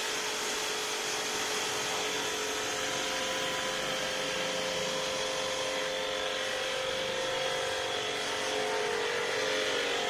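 Aimex pressure washer running steadily, its motor and pump giving a steady whine under the hiss of the high-pressure water jet spraying onto a van's body.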